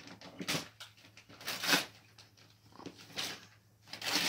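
Several short rustles and knocks of wrapping paper and cardboard gift boxes being handled, coming a second or so apart.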